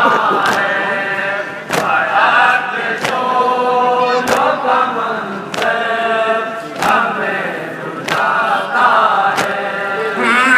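Voices chanting a noha, a Shia mourning lament, with a sharp slap about every 1.3 seconds in time with the chant: the beat of matam, chest-beating with the hands.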